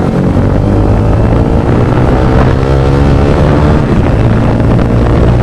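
Motorcycle fitted with a full-system Akrapovic aftermarket exhaust, loud and raw, its engine note rising and falling as the throttle is blipped through the middle, over a steady low exhaust rumble.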